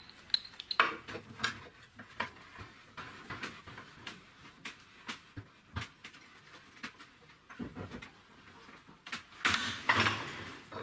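Steel tube and bushing being handled at a bench vise: scattered metal clinks, taps and knocks, with a louder, longer metal-on-metal scrape about nine and a half seconds in.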